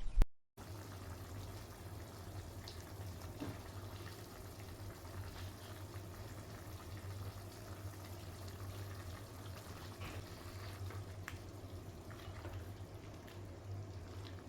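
A pan of food simmering on the stove: a steady, quiet bubbling hiss over a low hum, with a few faint ticks.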